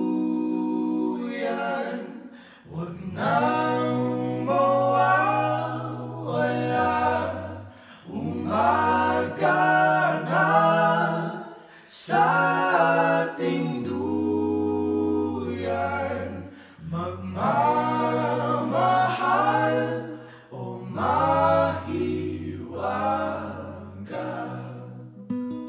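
A cappella vocal music: several voices singing in harmony over a held low bass line, in phrases broken by short pauses.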